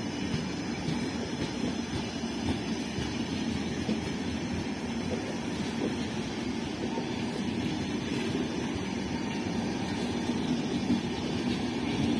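Indian Railways passenger coaches rolling past, a steady noise of steel wheels running on the rails.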